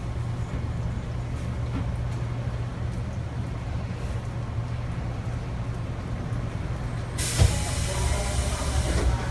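Electric commuter train standing with a steady low hum; about seven seconds in, a thump and a sudden hiss of compressed air from the train's pneumatic system, lasting about two seconds.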